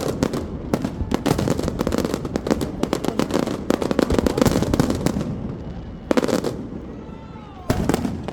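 Fireworks display: rapid, dense crackling bangs for about five seconds, then thinning to a few separate bursts, with another loud burst near the end.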